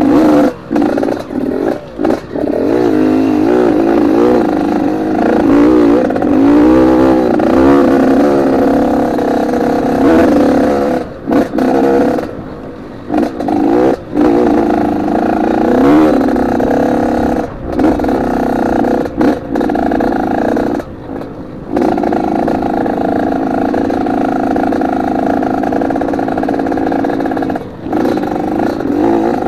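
Trail motorcycle engine running under varying throttle, its note wavering up and down, with several brief drops where the throttle is shut off.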